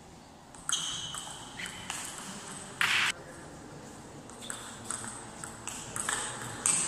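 Table tennis rally: the ball clicks sharply off the bats and the table in quick, irregular succession, with a short louder burst of noise about three seconds in.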